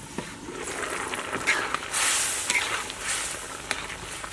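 A domed metal lid lifted off a wok with a clink, then the wok's contents sizzling and hissing with steam, loudest about two seconds in, while a metal spatula scrapes and stirs.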